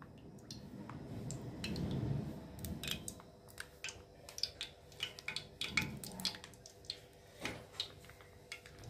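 Cooking oil poured in a stream from a bottle into a wok, a low pouring, gurgling sound that swells twice, with scattered small clicks and ticks.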